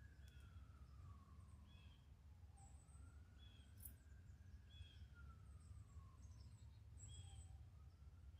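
Faint, distant siren wailing, its pitch slowly rising and then falling about every four seconds, over a low rumble, with a few short high chirps.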